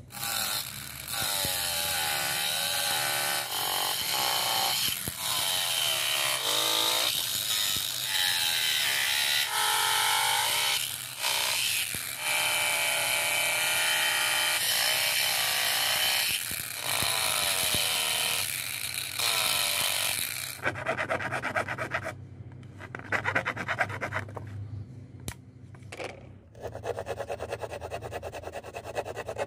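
Small angle grinder with an abrasive cutting disc cutting through a PVC sheet, its whine dipping and rising in pitch as the disc bites, for about twenty seconds. After that come a series of shorter, rough, stop-start scraping bursts.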